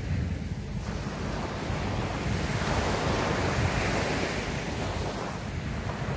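Small surf breaking and washing up a sandy beach, swelling to its loudest about three to four seconds in, over a steady low rumble of wind buffeting the microphone.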